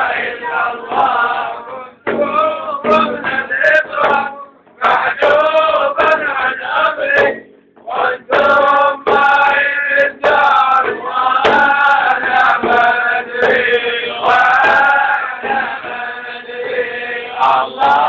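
Group of men chanting a Sufi devotional song together in short phrases, with strokes of a large hand-held frame drum keeping the beat.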